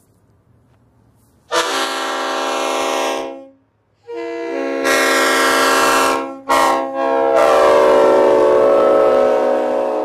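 Vehicle-mounted multi-chime train-style air horn blowing a loud chord in four blasts: two of about two seconds each, a very short toot, then a final blast of about three seconds.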